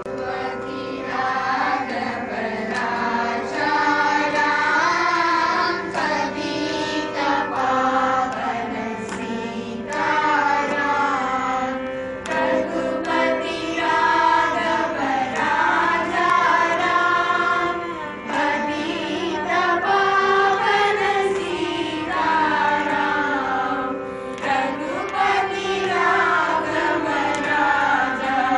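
A group of children and women singing a song in unison into microphones, with violin accompaniment over a steady, unchanging drone. The singing swells in during the first second.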